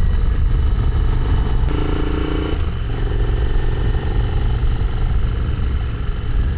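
Royal Enfield 650's parallel-twin engine running steadily while the motorcycle cruises along the road, with wind rush on the microphone.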